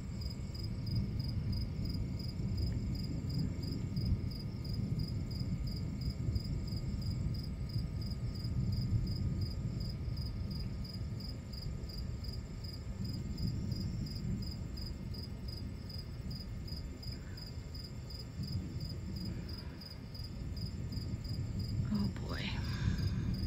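Low, continuous rumble of distant thunder rolling on and off, with crickets chirping in a steady, even pulse.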